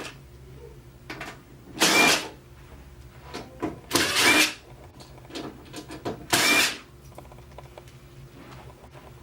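A cordless electric screwdriver runs in three short bursts, each with a brief rising whine, backing screws out of the Korg N364 keyboard's case to open it, with small clicks between the bursts.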